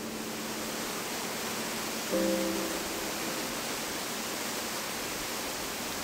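Steady hiss of heavy rainfall, with background music: a sustained keyboard chord comes in about two seconds in and fades.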